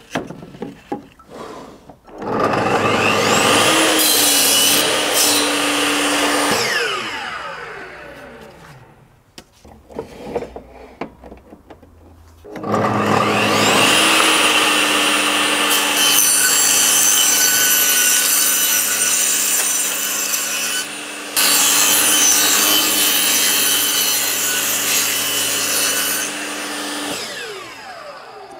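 Bosch table saw run twice: each time the motor spins up with a rising whine, runs while the blade cuts through wood, then coasts down with a falling whine. The first run is short, about five seconds; the second starts about halfway through and runs roughly fourteen seconds before winding down near the end.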